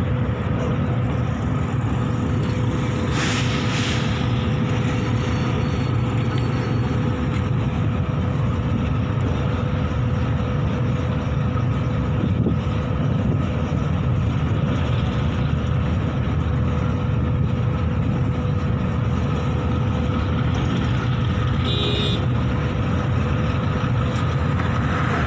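Long freight train of covered wagons rolling past at steady speed: an even low rumble of steel wheels running over the rails, with a thin steady whine through it.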